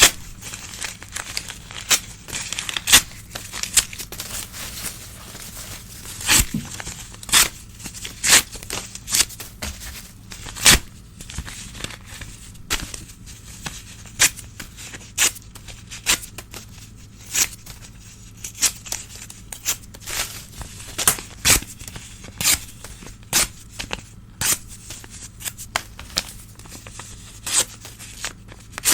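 Old newspaper being torn by hand: a run of short ripping tears, about one or two a second, with some crinkling of the paper between them.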